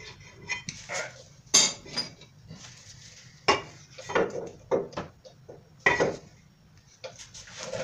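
Irregular metallic clanks and clicks of hand tools against a rear disc-brake caliper as its pistons are pushed back in.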